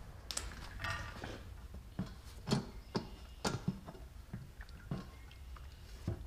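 Scattered sharp clicks and light knocks of plastic parts being handled as the air-cleaner cover and filter are pulled off a Honda GC160 small engine, the loudest clicks coming in a cluster midway through.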